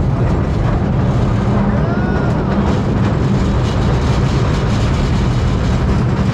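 1896 Market Street Railway streetcar No. 578 running, with a steady low rumble and hum from its two GE 1000 traction motors and running gear.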